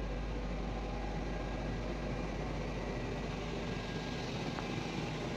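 A steady mechanical drone with an even hiss.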